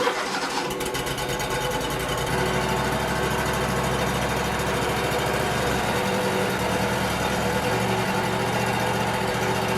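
Wood-Mizer LT35 portable band sawmill running steadily while sawing cedar into boards, its engine and band blade running together; the sound deepens and gets a little louder about two seconds in.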